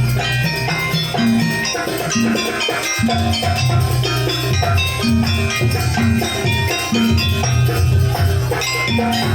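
Jaranan gamelan accompaniment: ringing tuned metal percussion over drums, playing a steady repeating pattern.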